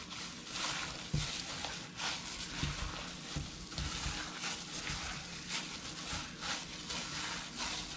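Gloved hands kneading and squeezing a raw ground beef mixture in a bowl: irregular squishing and rustling of meat and thin plastic gloves.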